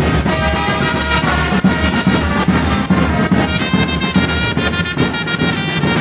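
Brass band playing: trumpets sounding held melodic notes over a bass drum beat.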